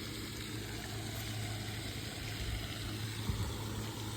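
Boat motor running steadily, a low even hum, with a couple of soft bumps in the second half.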